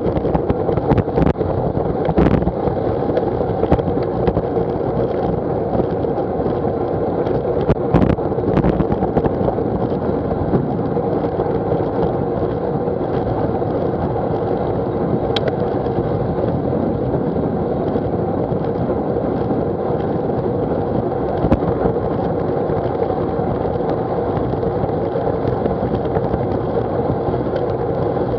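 Steady wind and road noise from a bicycle ridden at about 20 to 25 mph on wet tarmac, picked up by a bike-mounted action camera. A few sharp knocks and rattles from bumps in the road come mostly in the first ten seconds.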